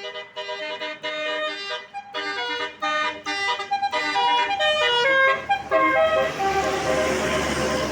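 A tour bus's Basuri telolet horn, a multi-trumpet musical air horn, plays a quick tune of short, changing notes. In the last couple of seconds a loud rushing noise takes over.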